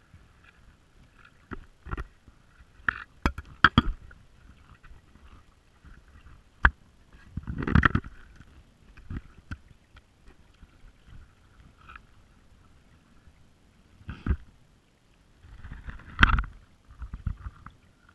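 Muffled knocks and bumps picked up underwater by a GoPro in its waterproof housing as the magnet-fishing line it rides on is dragged over the silty dock bottom. They come scattered and sudden, with a longer rumbling scrape about eight seconds in and again near the end.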